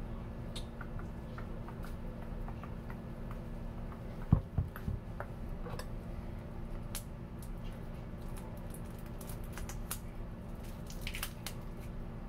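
Plastic-wrapped potatoes and a kitchen knife being handled at a counter: light crinkling and small scattered clicks. About four seconds in there is a sharp knock, the loudest sound, then two smaller ones, as something is set down on the cutting board. A steady low hum runs underneath.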